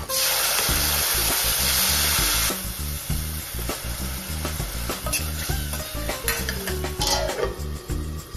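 Chopped tomatoes hitting hot oil with cumin seeds and green chillies in a stainless steel kadhai. They sizzle loudly for about two and a half seconds, then settle to a softer crackling sizzle.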